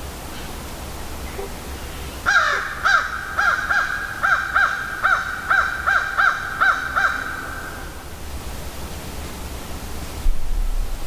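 A bird calling loudly in a quick series of about a dozen short, arching notes over a held tone, lasting about five seconds. A low rumble comes in near the end.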